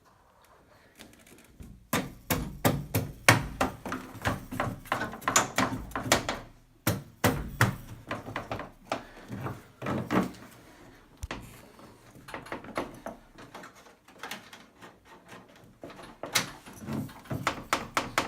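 Knocking, clicking and rattling of hand work on a Bosch washing machine whose door stays locked with fault code E:23. The knocks start about two seconds in and come thick and fast, ease off for a few seconds, then pick up again near the end.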